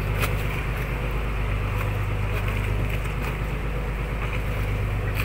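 Motorboat engine running steadily at low speed with an even, low drone as the boat casts off from the quay.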